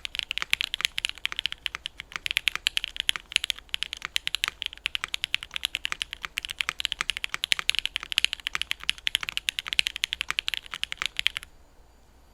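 Mechanical keyboard with linear switches made from Jwick housings and Kailh Red stems, typed on quickly in a steady stream of keystroke clacks. The typing stops about eleven seconds in.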